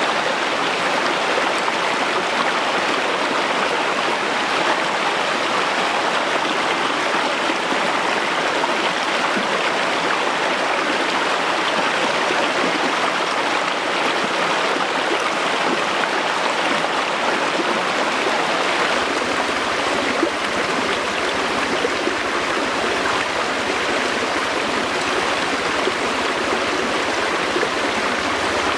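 Shallow rocky stream running steadily over and between stones.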